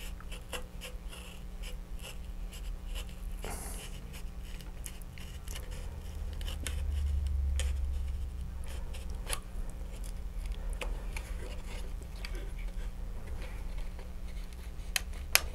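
Hobby knife blade slowly cutting through a thin plastic fairing shroud: faint, scattered scratching and small clicks as the blade works, over a steady low hum.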